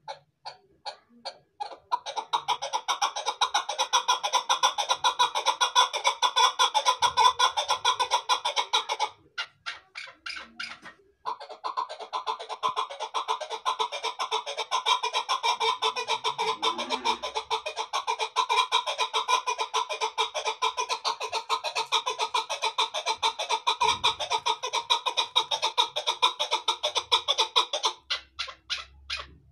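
Chukar partridge calling: a run of spaced clucking notes that quickens about two seconds in into a long, rapid, even series of calls. The series breaks off for a moment around nine seconds, resumes, and slows back to spaced notes near the end.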